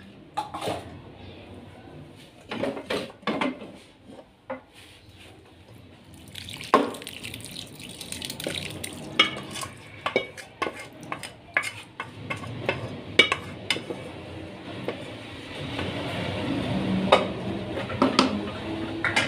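Spoon knocking and scraping against an aluminium cooking pot as masala is layered over rice and spread with a wooden spoon: scattered clinks and knocks over a soft scraping noise.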